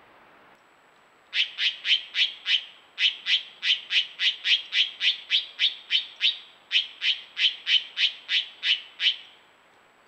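An animal giving a sharp, short call over and over, about three times a second, in three runs with brief pauses, each call dropping slightly in pitch.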